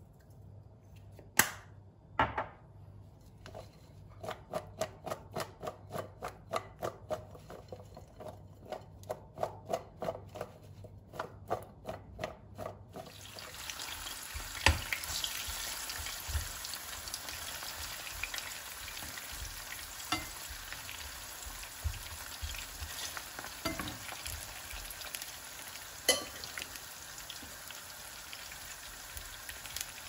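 Potato wedges being mixed with flour and spices in a ceramic bowl: two knocks, then a quick run of clinks about two or three a second. About halfway through, the wedges are sizzling steadily as they fry in oil in a pan, with occasional taps of a slotted spoon.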